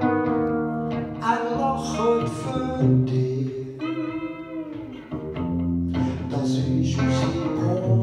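A man singing a slow song, accompanied by electric guitar, with a held, wavering note about halfway through.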